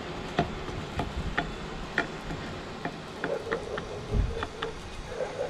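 Wooden spatula tapping and scraping against a nonstick frying pan while spreading wheat pancake batter, a string of irregular light ticks.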